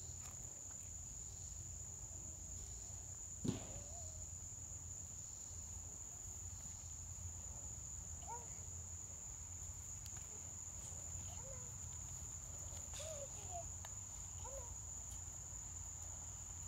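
Insects, crickets by their sound, chirping in a steady high-pitched drone, with a single sharp knock about three and a half seconds in.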